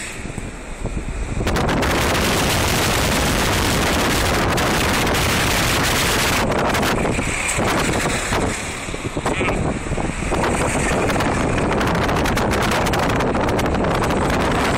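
Strong wind rushing over the microphone, a loud steady rush that eases briefly near the start and again about halfway through.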